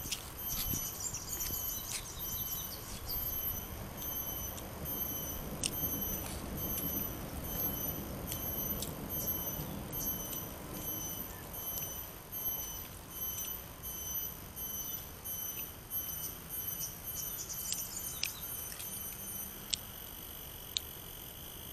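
Eating sounds: chewing and scattered small clicks of chopsticks and a plastic spoon against a foam food box, over a steady pulsing chirp of insects. Short bird twitters come about a second in and again near the end.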